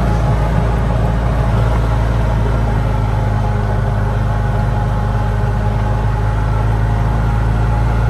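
Golf cart driving along, its motor giving a steady low rumble.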